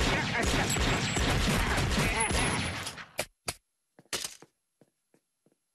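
Cartoon fight sound effects: a dense flurry of hits and crashes for about three seconds that cuts off suddenly, then a few separate sharp knocks and thuds.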